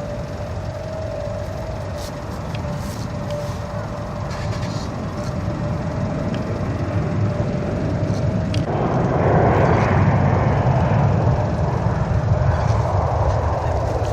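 A steady low vehicle rumble with a held whine, turning suddenly louder and rougher about nine seconds in.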